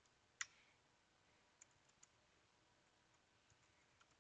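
Computer keyboard keystrokes, a few faint scattered key clicks with one louder click about half a second in.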